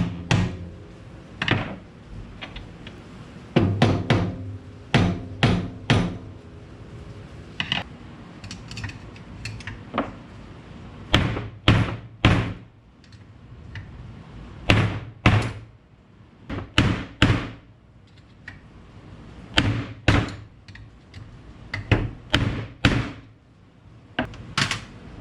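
Irregular sharp knocks and clunks of hand tools and metal suspension parts being handled, set down and struck, coming in small clusters, some with a brief low ring.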